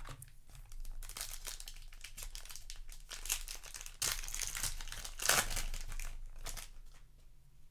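Foil booster-pack wrapper crinkling and tearing as a trading-card pack is opened, a dense run of crackles that is loudest a little past the middle and dies down near the end.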